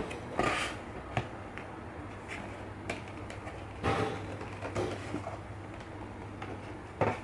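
Cardboard packaging being handled: short scraping rustles as a lidded cardboard box slides out of a larger carton and is opened, with a few light taps and knocks in between.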